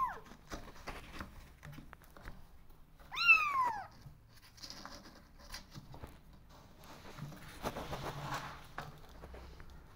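A kitten meows once, about three seconds in: a single call that rises briefly and then falls in pitch. Faint scuffles of kittens moving about in a cardboard box are heard between calls.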